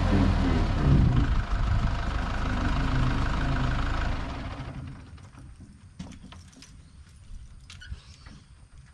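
Kubota compact tractor's diesel engine running steadily, then shut off about four seconds in, leaving faint scattered clicks and knocks.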